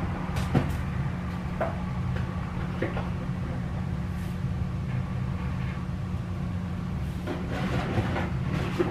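Steady low hum of a kitchen appliance, with a few light knocks and clicks as things are handled, like a cupboard or fridge door being opened and closed.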